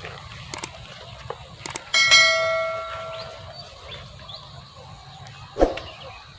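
A small metal bell is struck once and rings, fading over about a second and a half, after a few light clicks or taps. A dull thud comes near the end.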